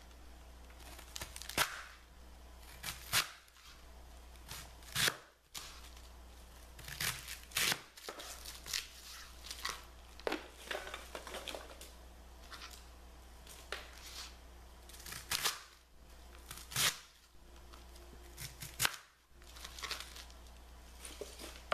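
Chef's knife cutting through raw cabbage heads on a cutting board: about twenty sharp, irregularly spaced cracks as the blade splits the crisp leaves and core and knocks against the board.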